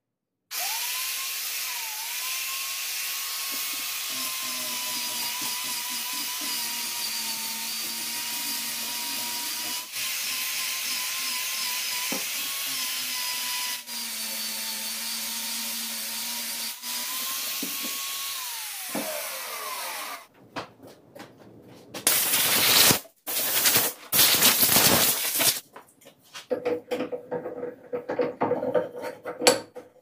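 Angle grinder running steadily with a high whine as it strips bark from a tree branch, then spinning down about two-thirds of the way in. It is followed by a run of loud, rough scraping strokes on the wood.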